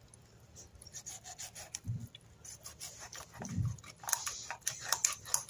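Knife sawing and scraping through a tilapia's scales, skin and small bones as the fillet is cut away on a plastic cutting board: a rapid run of short scrapes and clicks, with two soft low thumps about two and three and a half seconds in.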